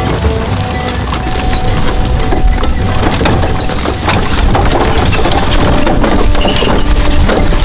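Horses' hooves clopping and wooden horse-drawn wagons rattling as they roll past, with many irregular knocks over a low rumble.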